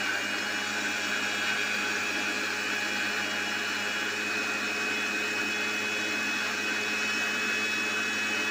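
Electric blender running steadily, blending chopped fruit, sugar and milk into a milkshake: a constant motor hum and whine with no change in speed.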